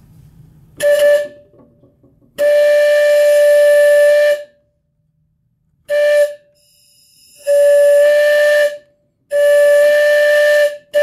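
Cord-pulled whistle on a ride-on Porter 0-4-0 model locomotive, blown in five blasts: a short toot, a long blast, another short toot, then two long blasts. Each blast holds one steady pitch with a breathy hiss under it.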